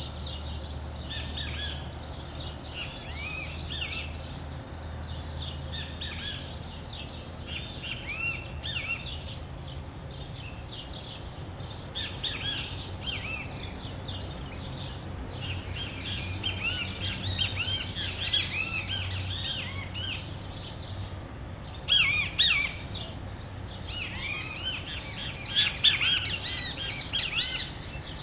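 Many birds singing and chirping at once in an early-morning chorus: dense, overlapping short chirps and whistles, with two louder flurries of calls in the last third.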